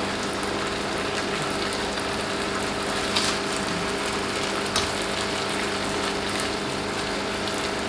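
Prawns sizzling in a frying pan while being stirred, with the utensil clicking against the pan a couple of times, about three and five seconds in. A steady hum runs underneath.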